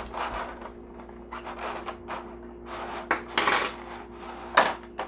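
Small metal toy cooking utensils clinking and clattering against each other and the table as they are taken out of their plastic packaging, with some rustling of the plastic; the sharpest clink comes near the end.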